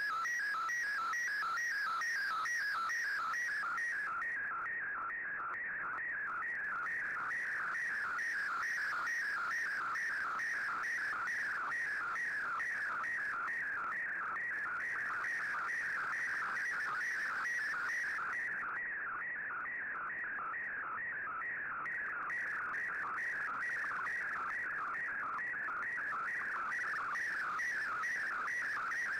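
A shortwave digital picture transmission received on an Icom IC-R8600: a steady, fast-warbling data tone in a narrow band, carrying an image as it is decoded.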